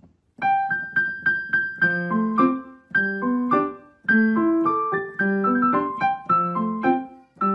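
Piano music with a light melody over chords, starting about half a second in after a brief silence.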